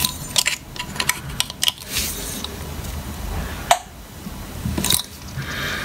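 Metal clicks and scrapes of pliers gripping and twisting a cut-out soldered copper pipe elbow, the piece that had been leaking, as the joint is worked apart. There is a run of light clicks in the first two seconds and one sharper knock a little past the middle.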